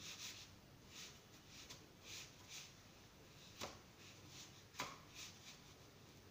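Faint soft rustling of sesame seeds as a dough ring is pressed and turned by hand in a tray of seeds, with two sharp clicks about a second apart a little past the middle.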